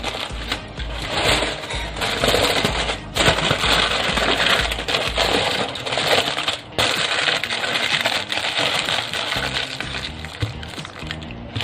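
Aluminium foil crinkling and rustling as it is folded and pressed by hand around a fish, with two brief let-ups about three and seven seconds in.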